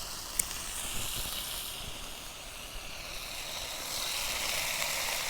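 Oil with garlic and tomatoes sizzling steadily in a pan, a little louder about four seconds in, with one sharp click about half a second in.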